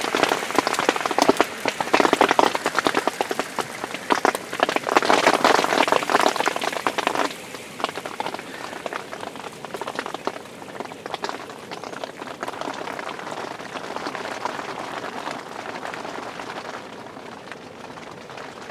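Hailstorm: hailstones pelting down in a dense, crackling patter of countless small hits, heaviest for about the first seven seconds, then suddenly lighter but still steady.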